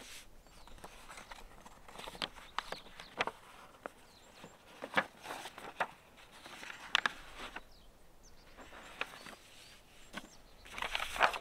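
Sheets of paper handled and shuffled on a stone surface: a series of short, crisp rustles and crackles, one every second or two, with a denser, louder flurry near the end.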